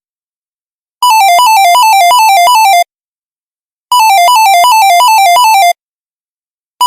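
Electronic iPhone ringtone in the style of an office phone ring: a rapid warbling trill between two pitches. It comes in rings of about two seconds with a one-second pause between them. Two full rings sound, and a third starts near the end.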